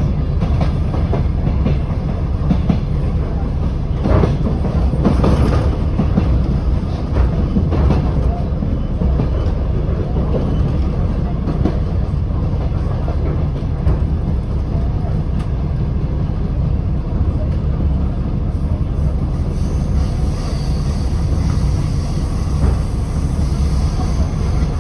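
Inside a moving DR1AM diesel multiple unit: the steady low rumble of the diesel and the wheels running on the rails, with a few sharp clacks over rail joints about four to five seconds in. A brighter hiss joins near the end.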